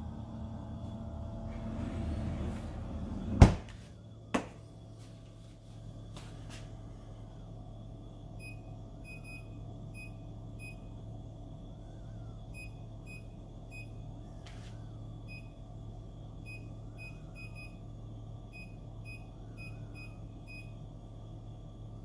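Hitachi R-WB550PT2 French-door fridge running steadily with a low hum, at high cool power just after first switch-on. A loud knock about three and a half seconds in and a lighter one a second later as the freezer drawer is shut, then from about eight seconds in the door control panel gives a string of short high beeps as its buttons are pressed.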